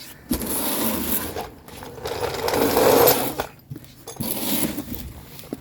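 Scraping and rustling of a cardboard box being handled, in three stretches of a second or so each, loudest about three seconds in.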